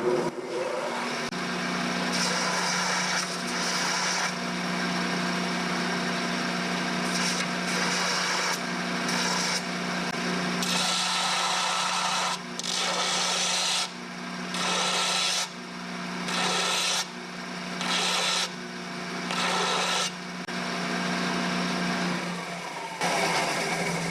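TIG welding arc from a Miller Syncrowave 250DX hissing steadily over a low electrical hum. In the second half the arc breaks off briefly and restarts about every one and a half seconds, as filler is dabbed in.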